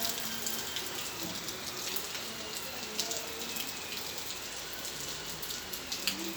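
Rain falling steadily, an even hiss with scattered sharp drip and splash clicks.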